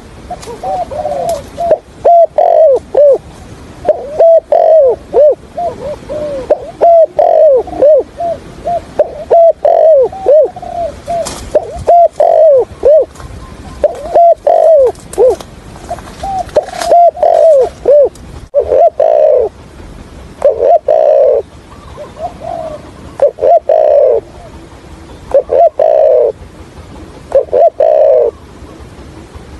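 Spotted dove cooing over and over, the stuttering coo used as a trapping decoy call. A quick run of short coos gives way about halfway through to longer coos spaced roughly two seconds apart.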